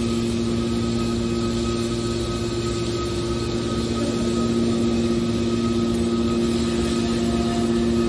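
Hydraulic scrap metal baler running, its power unit giving a steady droning hum with two low tones and a fainter higher whine.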